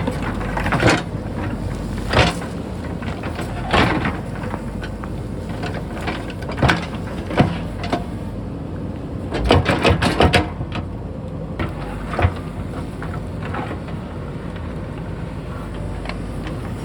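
JCB backhoe loader digging: engine running steadily, with repeated knocks and scrapes of the bucket on rock and soil, several close together about ten seconds in.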